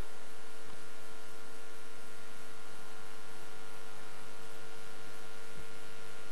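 Steady electrical mains hum and hiss with a constant whining tone, at an unchanging level and with no programme sound over it.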